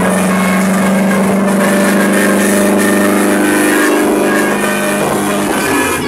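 Bus air horns sounding a steady chord of several held tones over the bus's road noise. The chord fades out about five and a half seconds in.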